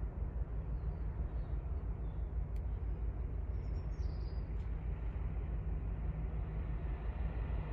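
Steady low rumbling background noise with a fluttering edge. A few faint high chirps and two small clicks come over it.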